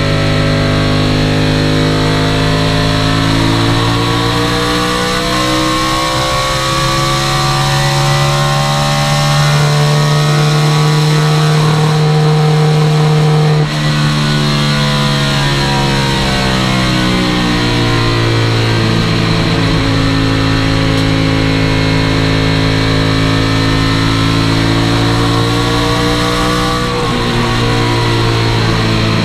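Chevrolet stock car's V8 engine at racing speed, heard from inside the cockpit. Its pitch climbs for about twelve seconds, dips sharply for a moment as the throttle is lifted, falls off for a few seconds, then climbs again, with another brief dip near the end.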